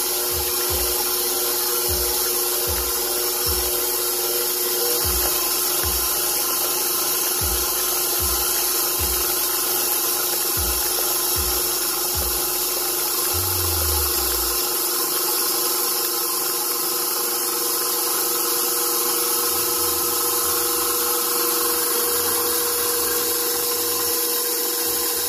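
KitchenAid Professional HD stand mixer running steadily, its wire whisk spinning through mashed baked sweet potato so the stringy fibres wind onto the whisk. A steady motor hum runs throughout, with a soft low thump repeating about twice a second through the first half.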